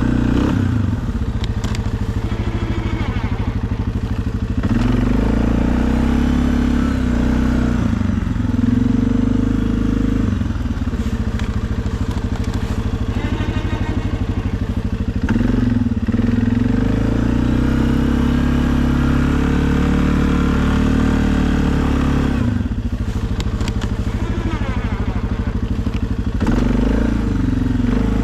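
Suzuki KingQuad ATV's single-cylinder four-stroke engine running while plowing snow, its revs rising and falling every few seconds.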